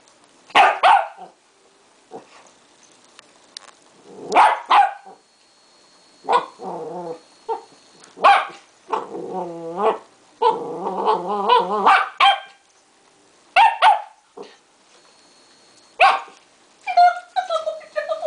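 West Highland White Terriers barking in play, in sharp single barks repeated every few seconds. Between the barks come longer vocal sounds that waver in pitch.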